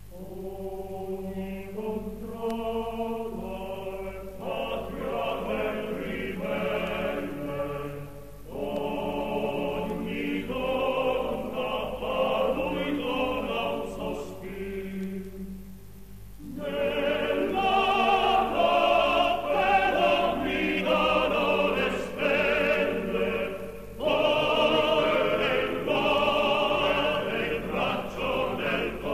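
Choral music: voices singing with vibrato in long phrases, broken by short pauses about 8, 16 and 24 seconds in.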